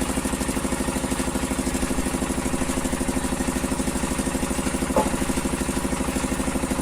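Sawmill engine running steadily with a rapid, even throb while the saw is not cutting. A short knock comes about five seconds in.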